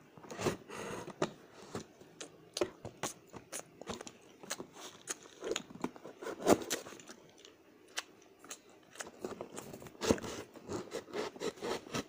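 Knife cutting packing tape and scraping on a cardboard box: irregular scratches, crackles and clicks, with louder knocks about six and a half and ten seconds in.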